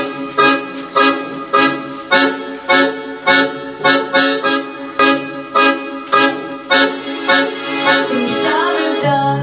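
Instrumental song introduction: chords struck about twice a second, each one sharp at the start and fading before the next. Near the end the repeated strikes give way to a smoother, held sound.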